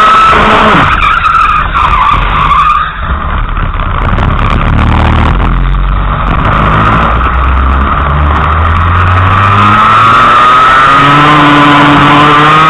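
Racing kart engine heard loud from on board. The revs fall away sharply in the first second and stay low through the corner, then climb steadily again from about ten seconds in as the kart accelerates out.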